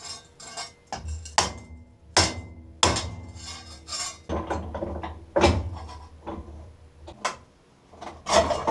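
Hammer blows on a stainless-steel tube laid on a steel block, sharp metallic strikes with a short ring, roughly one a second, closing up a slit in the tube to reduce its diameter.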